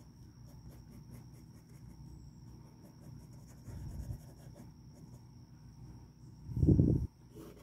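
Black Sharpie pen scratching in quick short strokes on sketch-pad paper, faint, with a short louder low thump about six and a half seconds in.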